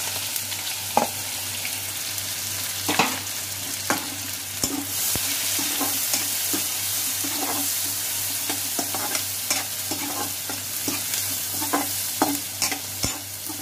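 Chopped onions sizzling in hot oil in a metal kadai, being fried toward golden brown. A steel ladle stirs them, scraping and clinking against the pan, with the clinks coming more often in the later seconds.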